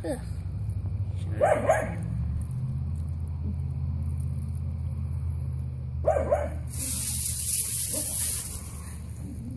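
A dog barks in two quick double barks, about a second and a half in and again about six seconds in, over a steady low hum. A hiss follows the second pair for a second or two.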